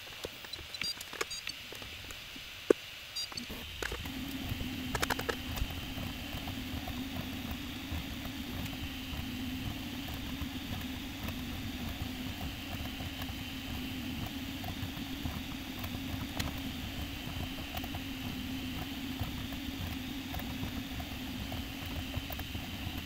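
Prusa MK4 3D printer running a print: a steady hum from its fans with a fast, even patter from the stepper motors moving the print head. It starts about three and a half seconds in, after a few scattered clicks.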